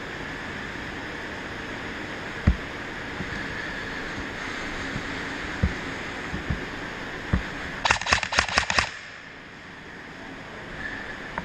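EMG SAI GRY M4 airsoft rifle firing one short full-auto burst of about eight rapid shots, about eight seconds in. Before it, a steady hiss with a few dull knocks.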